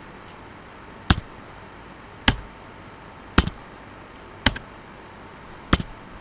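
Computer keyboard keys struck one at a time: five or six sharp, isolated clacks about a second apart, with a quicker pair near the end, over a faint steady hiss.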